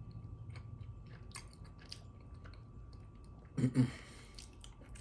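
A person chewing a mouthful of dumpling and butter, with small wet clicks of the mouth, and a brief hum from the voice about three and a half seconds in.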